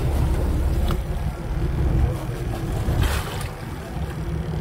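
Wind rumbling on the microphone aboard a boat, with a splash about three seconds in as a hooked fish thrashes at the surface beside the landing net.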